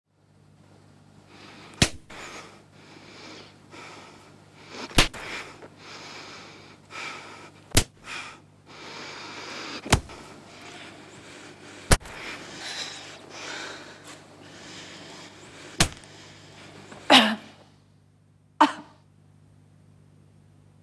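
A woman striking herself in the face, six sharp blows a few seconds apart, with heavy gasping breaths and whimpers between them. A louder cry near the end, then a short sob.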